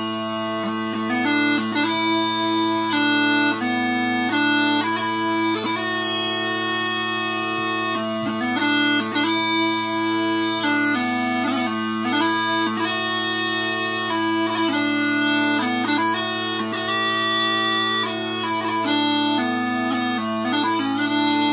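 Quietpiper small pipes (a four-drone set by Robert Felsburg) being played: a melody on the chanter, its notes changing every half second or so, over steady, unbroken drones.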